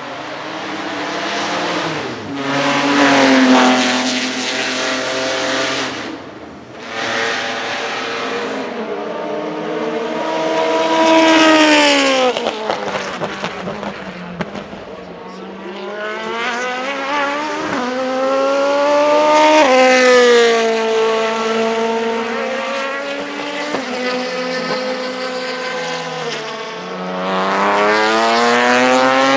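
Racing car engine accelerating hard through the gears, its pitch climbing on each gear and dropping at each shift, then falling away as it lifts off. This happens several times, with the loudest pushes about three, eleven and twenty seconds in.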